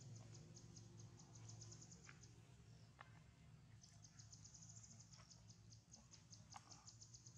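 Faint outdoor quiet with a high-pitched, rapidly pulsing insect trill, which breaks off about two seconds in and starts again about four seconds in.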